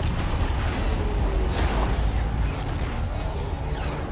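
Film sound effects of an airliner breaking apart in flight: a loud, steady deep rumble with rushing air. Whooshes sweep through about one and a half seconds in and again near the end.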